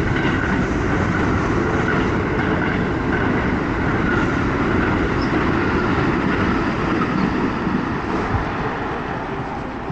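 Electric commuter train passing close by, a steady loud rush of train noise that fades away near the end.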